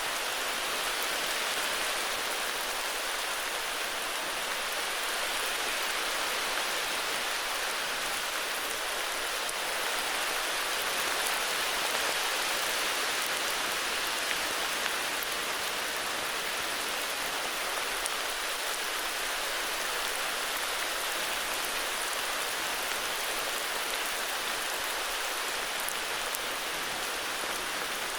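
Heavy rain falling steadily, an even hiss of drops on surfaces with no let-up.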